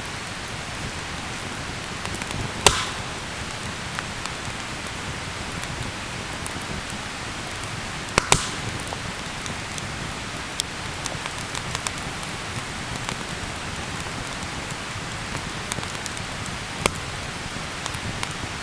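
Wood campfire burning: a steady hiss with scattered small crackles and a few sharp pops, the loudest about three seconds in, two close together around eight seconds, and one more near the end.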